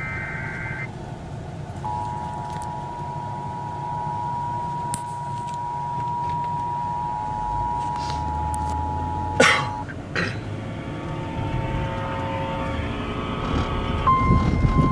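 Emergency Alert System broadcast: the last of a warbling SAME data header burst, then the steady two-tone EAS attention signal for about eight seconds, cut off by a click. Near the end, a single steady NOAA Weather Radio warning alarm tone starts, all over hissy radio reception noise.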